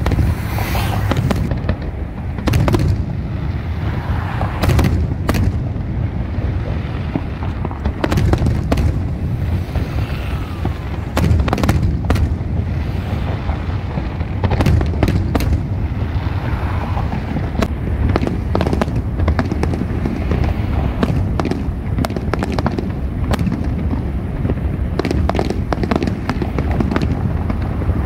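Aerial fireworks display: a rapid run of booming bursts and sharp cracks, one after another, over a constant low rumble.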